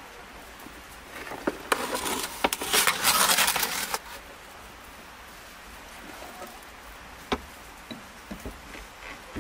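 A metal roasting tray scraping across the floor of a clay oven as it is pushed in, about three seconds of gritty scraping with clicks. Near the end come a few wooden knocks as a plank door is set against the oven mouth.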